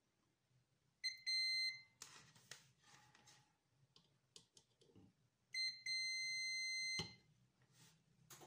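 Digital multimeter's continuity beeper sounding twice: a steady high beep of about half a second, then one of about a second and a half, each sounding as the probes close a low-resistance path on the power supply board. Light clicks between the beeps.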